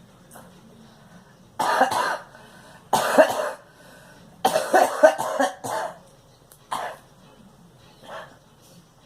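A fit of harsh coughing: two single coughs, then a longer run of several coughs in a row, then two shorter, fainter coughs near the end.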